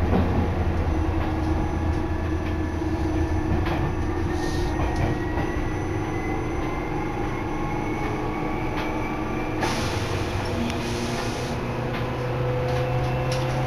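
Electric commuter train of the Seibu Kokubunji Line running, heard from inside the carriage. A steady running noise carries a faint whine that slowly rises in pitch over most of the stretch, with a brief rush of louder noise about ten seconds in.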